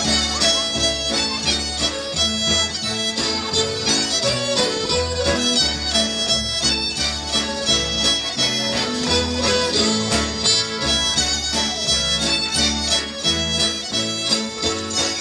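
Live band playing an upbeat tune on fiddle, accordion, acoustic guitar and electric guitar, with a steady pulsing beat.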